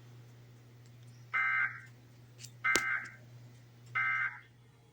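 Emergency Alert System end-of-message (EOM) signal: three short bursts of two-tone digital data screech, about a second and a quarter apart, marking the end of the test message. A sharp click comes just before the second burst, over a faint steady hum.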